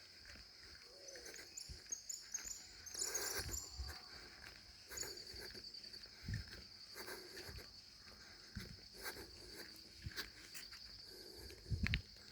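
Insects chirring steadily in woodland, with scattered footfalls and rustles on the trail and a short run of high notes about two to three seconds in.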